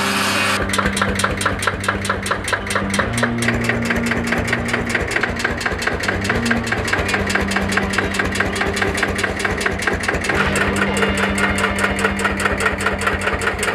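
The Pampa tractor's single-cylinder hot-bulb two-stroke engine catches about half a second in, after its preheating. It then runs with an even, rapid chugging beat.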